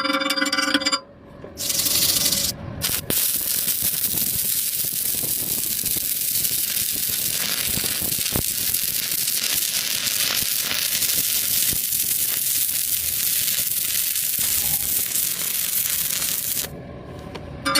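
Welding arc crackling and hissing steadily for about fifteen seconds, with a couple of brief breaks near the start; a snatch of music comes before it.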